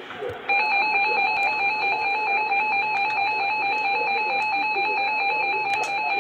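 NOAA Weather Radio alert tone: a steady electronic tone that starts about half a second in and holds unchanged. It is the attention signal that comes before a severe thunderstorm warning broadcast.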